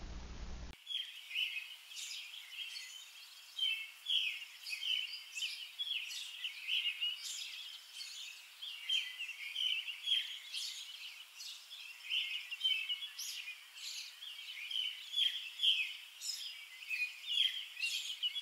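Small birds chirping and singing in a busy, unbroken run of short high calls, starting just under a second in.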